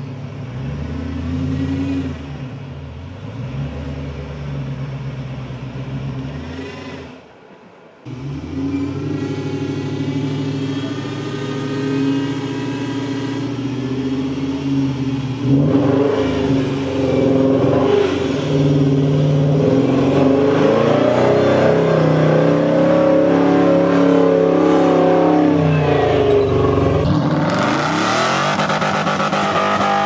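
Off-road 4x4's engine revving, its pitch rising and falling as it works. It breaks off briefly about seven seconds in, gets louder from about halfway, and rises in a sharp rev-up near the end.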